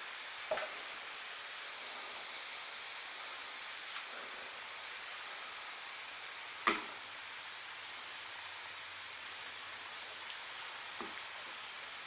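Small handling sounds as a rubber tire plug is coated with rubber cement: one sharp click about halfway through and fainter ticks near the start and near the end, over a steady high hiss.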